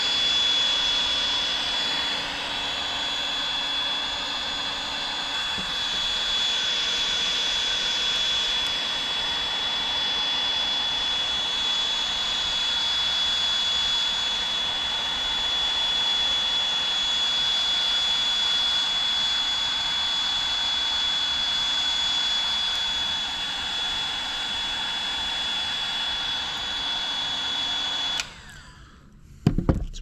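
Battery-powered heat gun running steadily, its fan blowing hot air with a high whine over the heat shrink on a crimped 35 mm² battery cable lug. It cuts off suddenly about two seconds before the end, followed by a couple of light knocks.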